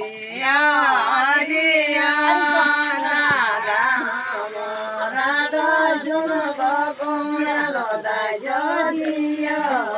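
A woman singing a chant-like melody, with long held notes that bend up and down in pitch.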